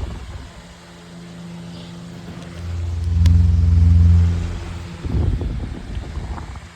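Metal 12-inch oscillating table fan running on high speed: a steady motor hum, with the airflow hitting the microphone as a loud low rumble that swells up and dies away in the middle as the oscillating head sweeps past, then gusty buffeting.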